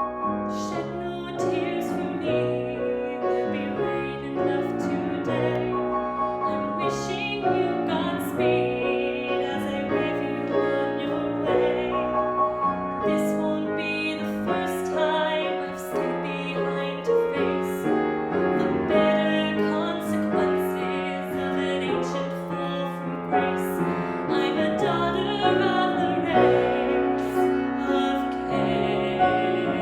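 A woman singing a slow musical-theatre ballad in a trained, operatic style, accompanied by piano.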